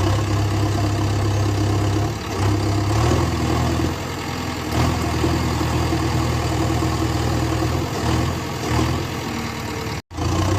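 A heavy engine running steadily, low-pitched, with its pitch shifting a few times, about two, three, five and eight seconds in. It cuts off abruptly shortly before the end.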